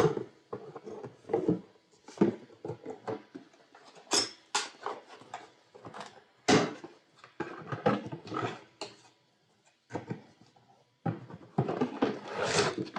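Irregular crinkling, rustling and knocks of a ring light's packaging being handled while it is unboxed, with a busier stretch near the end.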